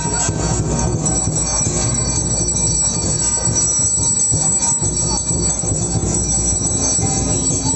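Loud, steady din of a packed crowd under sustained high metallic ringing of bells.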